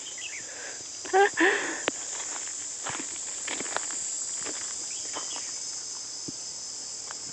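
Steady high-pitched chorus of insects, with scattered light clicks and a brief voice about a second in.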